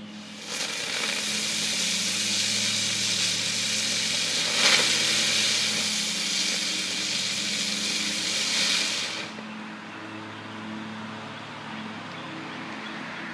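A loud steady hiss that starts about half a second in and cuts off after about nine seconds, with a steady low hum underneath.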